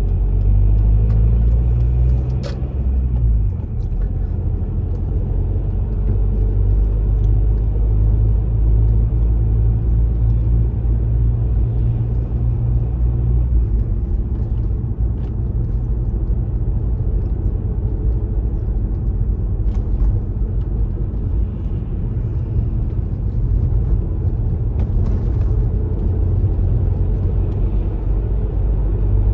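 Steady low rumble of a car driving, its road and engine noise heard from the moving car, with a sharp click about two and a half seconds in.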